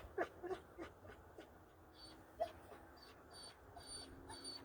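A dog whining in short, faint, high whimpers: several in quick succession in the first second, then one more a couple of seconds later.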